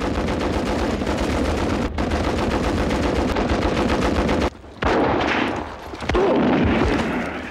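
Sustained rapid machine-gun fire. It breaks off at about four and a half seconds and is followed by two sudden loud blasts, about a second apart.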